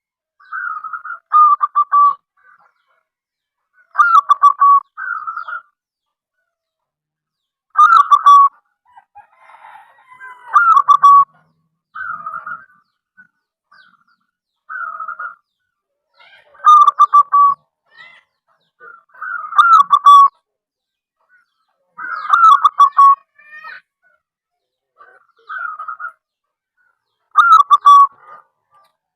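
Zebra dove (perkutut) cooing: about a dozen short phrases of quick, falling coos, each about a second long, repeated every two to three seconds.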